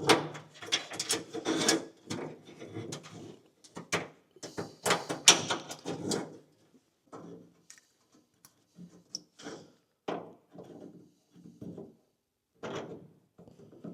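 Irregular knocks, clicks and scraping from hand work fitting the panel light stalks to a Willys MB dash. The noises are busy for the first six seconds or so and sparser after.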